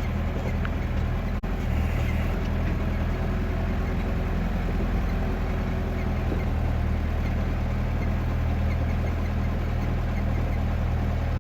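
Backhoe engine running steadily at an even, low pitch.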